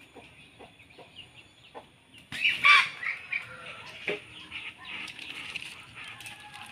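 Chickens in a yard: a loud squawk with a burst of wing-flapping about two and a half seconds in, then some shorter clucks, with small birds chirping throughout.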